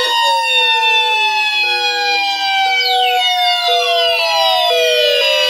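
Electronic emergency-alert tones. Several steady high tones sound together, a lower beep pulses on and off about once a second, and several tones slide down in pitch like a siren winding down.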